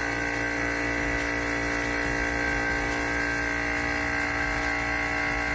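Vacuum pump running with a steady, even hum, pumping the air out of a vacuum chamber.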